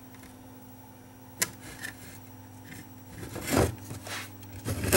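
Modem circuit board being handled and shifted on a workbench: a sharp click about a second and a half in, then louder rubbing and knocks near the end, over a low steady hum.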